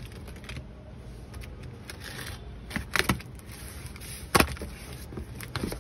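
Packing tape being torn and the flaps of a cardboard shipping box pulled open. There are a few sharp rips and crackles about three seconds in and the loudest one at about four and a half seconds, over a steady low hum.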